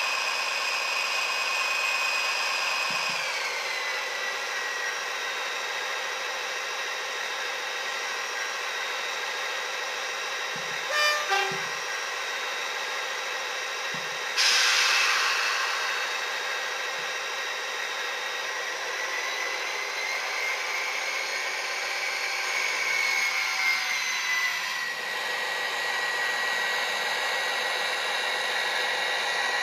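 Class 57 diesel locomotive sounds played through the small speaker of a Bachmann model's sound decoder. The engine drones steadily and drops in pitch about three seconds in, then rises and settles again as the locomotive moves off. Two short loud sounds come about eleven seconds in, and a loud burst of hiss a few seconds later.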